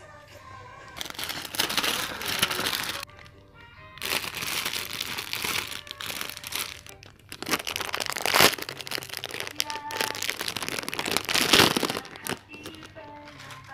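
Plastic packaging crinkling and rustling in long bursts as packaged items are handled, from about a second in until near the end, over soft background music.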